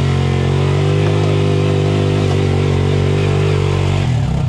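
ATV engine running at steady, held revs, then dropping off to idle near the end.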